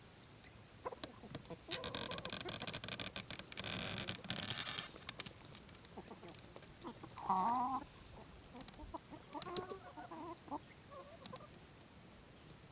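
A flock of free-range local hens clucking while they feed, with one loud wavering hen call about seven seconds in and more clucking around ten seconds. From about two to five seconds there is a dense run of rapid clicking.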